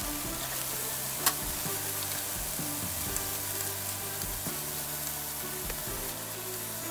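Chicken pieces and chopped carrot, onion and potato sizzling steadily in a frying pan as they are stir-fried with a wooden spatula, with one sharp knock about a second in. Soft background music with held notes plays underneath.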